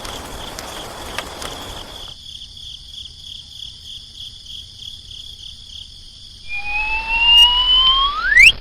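A steady, high, pulsing insect-like trill, over background noise that cuts off suddenly about two seconds in. Near the end, a loud tone rises steeply in pitch, like a siren or whistle sweep.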